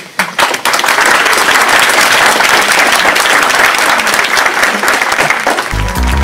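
Audience applauding, a dense steady clapping that starts just after the speaker's closing thanks. Near the end, music with a beat comes in as the applause fades.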